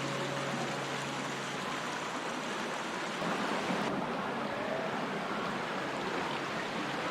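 Flowing stream water, a steady rushing. A low held music note fades out early, and about four seconds in the hiss turns duller, as at a cut.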